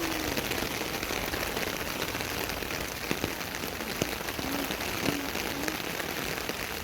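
Steady rain falling on a hard surface as an even hiss, with a few sharper drops ticking through the middle.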